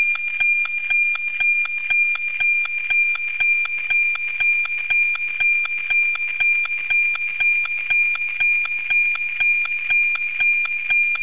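NOAA-19 weather satellite APT signal received with an RTL-SDR and demodulated to audio: a steady high tone with a regular tick-tock, about two ticks a second. Each tick marks one scan line of the cloud image being received.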